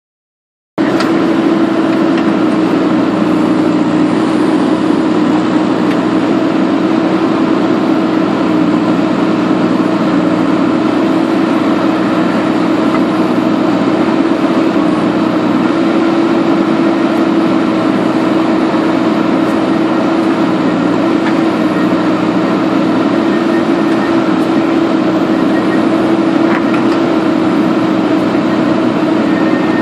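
JCB 3DX backhoe loader's diesel engine running steadily while the backhoe digs and lifts soil, an even, unchanging drone that starts about a second in.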